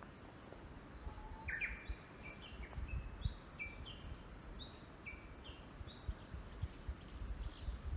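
A songbird singing a run of short whistled notes, each at a slightly different pitch, starting about a second and a half in and going on for several seconds. Under it, wind buffets the microphone with low, uneven rumbles.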